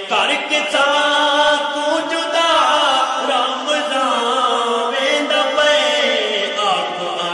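Unaccompanied male naat singing: long, drawn-out melodic phrases that slide up and down in pitch, with no instruments.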